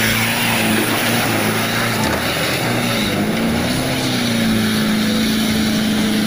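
Tanker truck's engine running hard under load as the truck ploughs through deep mud: a steady hum that rises a little about halfway, over a loud rushing of churned mud and water.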